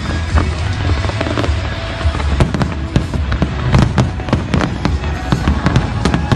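Fireworks display: many aerial shells bursting in quick succession, sharp bangs and crackles several times a second over a steady low rumble.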